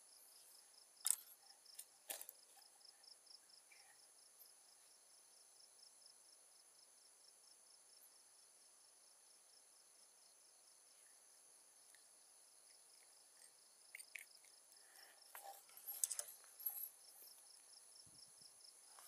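Faint, steady high-pitched insect chirring: one trill pulsing about four times a second over steadier higher tones. A few short knocks and rustles about a second and two seconds in, and again in a cluster near the end.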